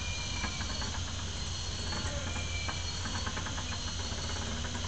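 Insects trilling steadily at a high pitch over a low, steady rumble.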